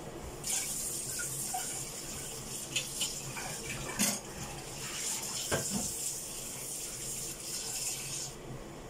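Kitchen tap running in a steady hiss, turned on about half a second in and shut off near the end, with a few sharp knocks along the way.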